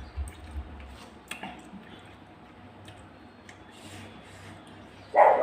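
A dog barks once near the end, after a few faint clicks.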